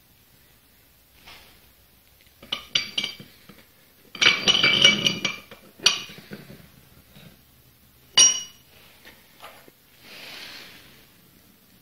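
Steel parts of a bench vise clinking and rattling as its threaded lead screw is fed into the jaw and the sliding T-handle clanks: a few ringing clinks, a dense clatter about four seconds in, and one sharp ringing clink after eight seconds.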